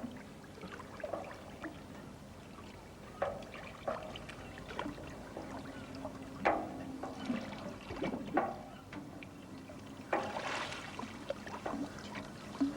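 Water splashing and lapping in small irregular splashes, like a boat or swimmers moving through harbour water, with a longer splash about ten and a half seconds in.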